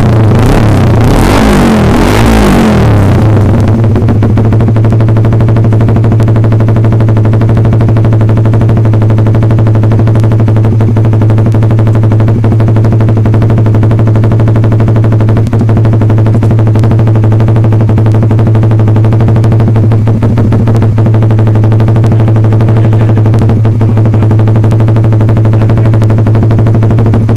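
Suzuki Satria F150 Fi motorcycle's single-cylinder engine running loud through an R9 GP racing exhaust. A rev dies away in the first couple of seconds, then it idles steadily with a rapid, even beat of exhaust pulses.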